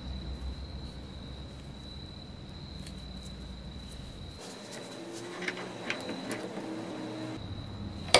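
Faint handling of small metal gun parts on a workbench, light clicks and knocks over a steady high-pitched whine, then one sharp metallic click near the end as the piece is clamped in a bench vise.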